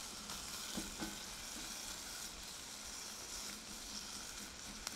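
Sliced onion sizzling steadily in a little oil in a small stainless steel pan while it is stirred with a silicone spatula, the onion just starting to soften.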